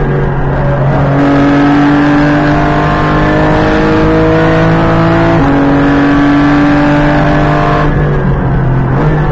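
Porsche GT4 Clubsport MR's flat-six racing engine heard from inside the cockpit, pulling at full throttle with its pitch climbing steadily. An upshift drops the pitch sharply about five seconds in, it climbs again, and the engine comes off the throttle near the end.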